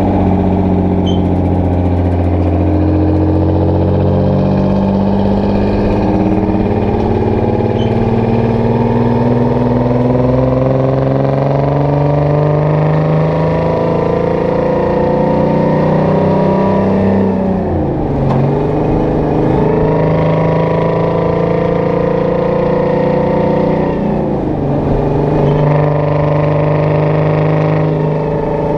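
Detroit Diesel 12V71 two-stroke V12 diesel in a Kenworth W900A running under load, heard through its straight exhaust stacks. Its pitch climbs steadily as the truck accelerates, drops sharply twice, about 18 and 25 seconds in, as gears change, then climbs again.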